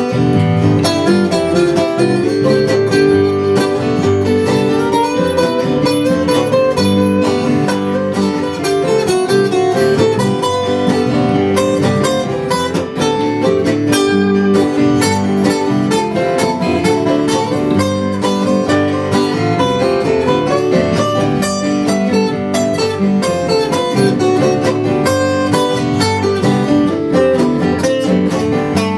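Acoustic guitar playing an instrumental passage, picked and strummed in a country/bluegrass style.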